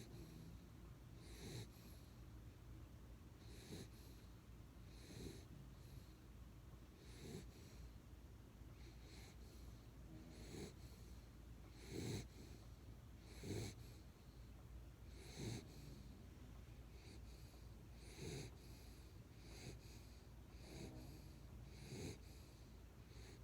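A sleeping pet snoring faintly, with about a dozen short snoring breaths at uneven gaps of one and a half to three seconds.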